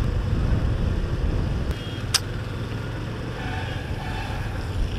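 Motorbike riding on a wet road, with a steady rumble of wind on the microphone and a single sharp click about two seconds in.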